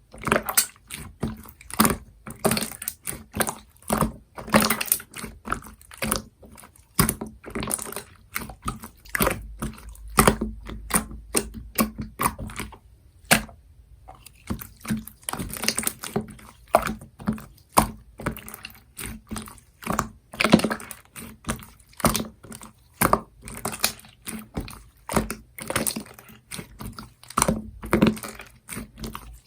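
Opaque slime being squished and poked by hand, making a run of wet clicks and pops several times a second, with a brief pause about thirteen seconds in.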